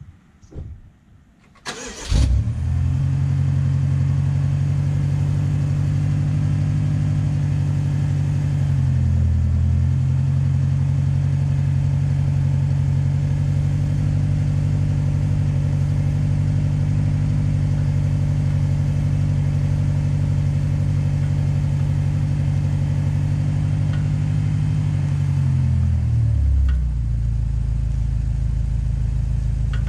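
BMW X5 M's twin-turbo V8 starting about two seconds in, then idling high and steady. Near the end the idle drops to a lower, deeper note.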